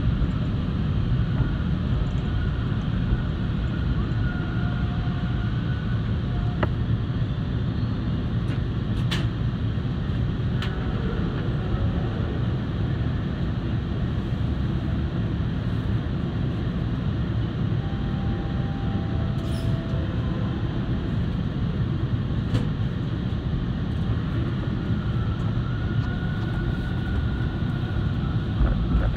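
TTC Line 2 subway train running along its tracks, heard from inside the front car: a steady rumble, with several sharp clicks and a few brief, faint squealing tones.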